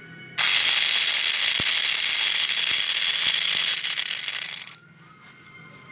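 Mini angle grinder grinding: a loud, harsh grinding hiss that starts abruptly about half a second in and cuts off after about four seconds.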